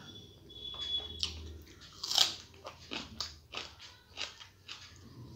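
Close-up chewing and crunching of a mouthful of rice and curry eaten by hand, a run of irregular wet clicks with one louder crunch about two seconds in.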